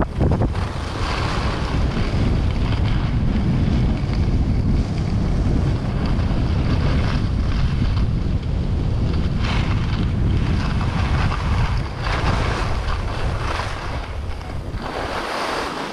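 Heavy wind buffeting the microphone of a camera moving fast downhill on skis, a steady low rumble with a brighter hiss of skis on snow swelling every few seconds through the turns. It dies down suddenly at the end as the skier slows.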